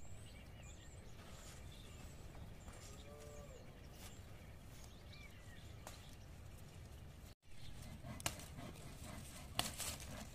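Quiet outdoor ambience with a few short bird chirps; in the second half, grapevine leaves rustle and snap sharply twice as leaves are picked off the vine.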